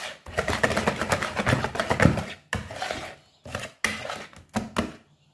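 A utensil stirring thick frangipane (almond cream mixed with pastry cream) in a bowl, scraping and knocking against the sides in a quick run of strokes. It cuts off suddenly near the end.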